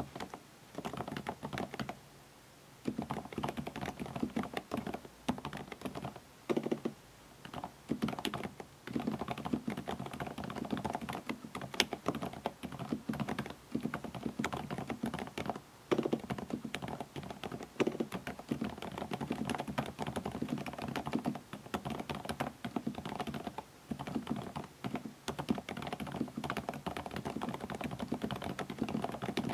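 Steady, fast typing on a Varmilo Minilo75 mechanical keyboard fitted with Kailh Prestige silent switches, the dampened switches giving soft, muffled keystrokes. The typing pauses once, about two seconds in.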